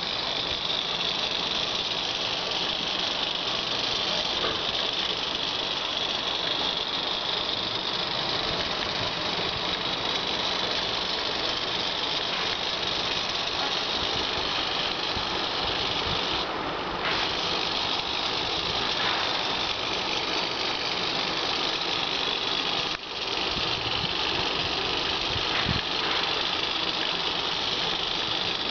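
Two SG90 micro servos, converted to continuous rotation, driving the robot's wheels: a steady high whir of small plastic-geared motors running slowly, with a brief dip twice late on.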